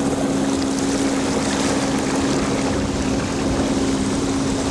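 Motorboat engine running at a steady speed, a constant drone over a wash of water and wind noise.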